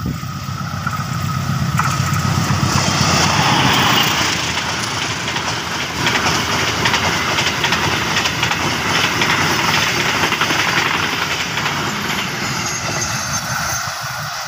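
Passenger train hauled by a CC201 diesel-electric locomotive passing close by at speed: the engine and the wheels running on the rails make a loud, continuous rumble that eases slightly as the train draws away near the end.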